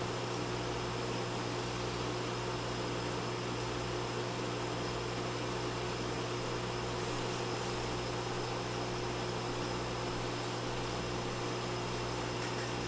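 Steady hum and hiss of reef aquarium pumps and equipment running, unchanging throughout.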